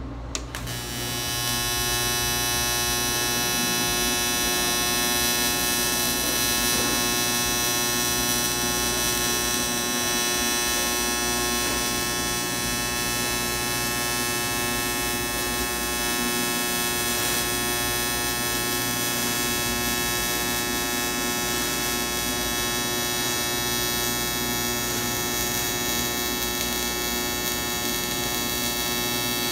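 AC TIG welding arc on cast aluminum: a steady electrical buzzing hum. It strikes with a click about half a second in, swells over the next second or so, then holds evenly.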